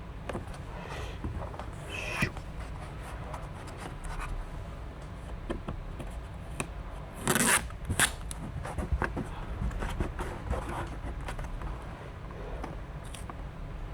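Hands working a vinyl door skin onto a plastic door panel: light rubbing, scraping and crinkling of the vinyl, with a louder brief rustle about seven seconds in.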